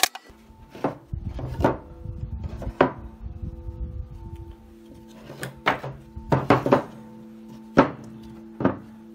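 Background music with a steady tune over a series of sharp wooden knocks and thuds from wooden brick-mold boards being handled on a table, about nine in all, some in quick pairs.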